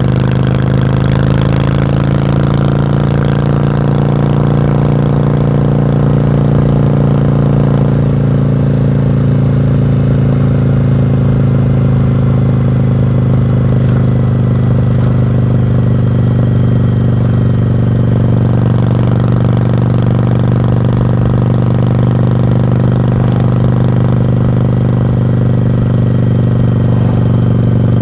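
1986 Yamaha Virago's V-twin engine running steadily through its exhaust, with no wind noise. The pitch eases down a little over the first several seconds and then holds even.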